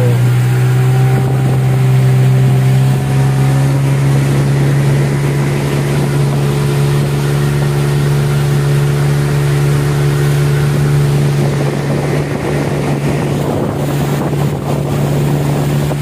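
Small boat's motor running steadily under way, its pitch stepping up slightly about three seconds in, with water rushing past the hull and wind on the microphone.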